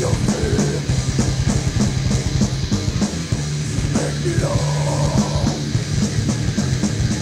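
Death-thrash metal band recording: distorted electric guitars over a steady, driving drum-kit beat. A harsher mid-range layer joins for about a second and a half near the middle.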